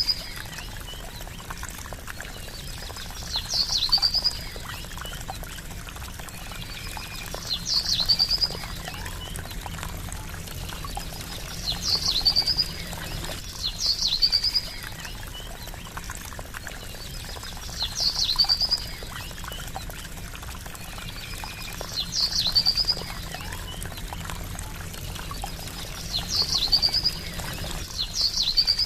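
Trickling water running steadily, with a short high bird trill that repeats about every four seconds.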